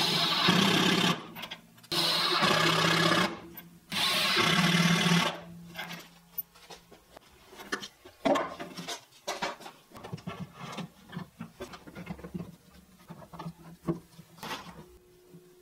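Cordless driver running screws into a plywood cabinet bottom in three bursts of about a second each, a steady motor hum under a dense rattle. After that come scattered light knocks and clicks of parts being handled.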